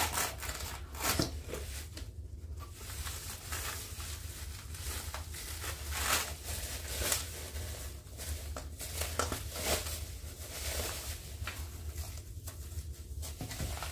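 Plastic bubble wrap crinkling and rustling in irregular crackles as hands pull a wrapped package out of a cardboard mailer and turn it over.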